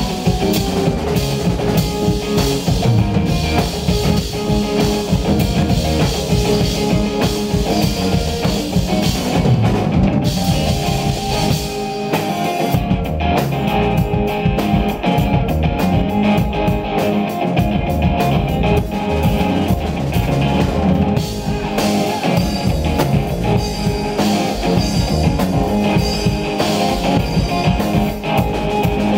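Live rock band playing an instrumental passage on electric guitar, bass guitar and drum kit, with no singing.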